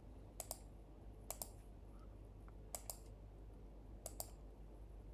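Computer mouse button clicked four times, each click a quick press-and-release pair, about a second or more apart.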